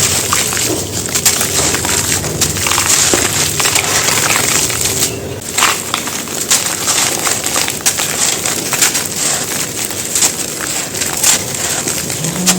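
Big dry chunks of gritty cement being crushed and crumbled, giving a dense, continuous crunching and crackling made of many small sharp cracks.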